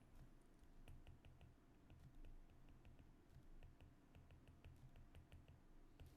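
Near silence with faint, light clicking, several small ticks a second in uneven runs, over a low hum.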